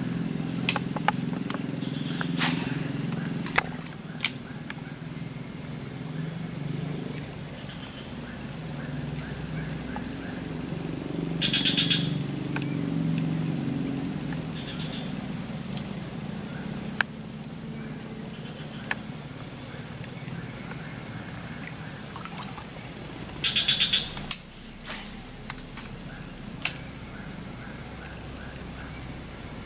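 Insects droning steadily at a high pitch, with short trilling calls about twelve and twenty-four seconds in and a few scattered sharp clicks; a low steady rumble sits underneath for most of the time.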